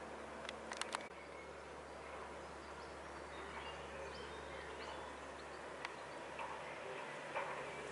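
Outdoor ambience: a steady background noise with faint, scattered bird chirps, and a few sharp clicks just before a second in.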